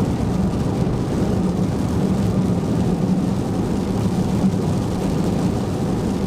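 Steady road and engine noise inside a moving car's cabin, a constant low drone with no breaks.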